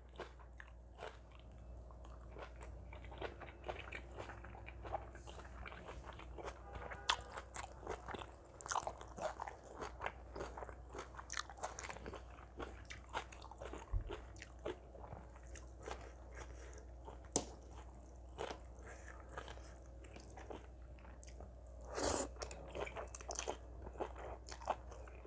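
A person chewing and crunching a mouthful of seafood papaya salad, with many small wet clicks and crunches throughout and a louder bout of crunching about 22 seconds in.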